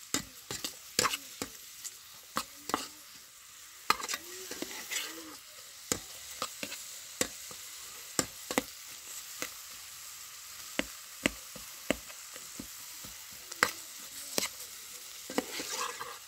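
Sliced onions sizzling in a metal pot while being stirred with a metal spoon: a steady high hiss with frequent sharp, irregular clicks as the spoon strikes and scrapes the pot.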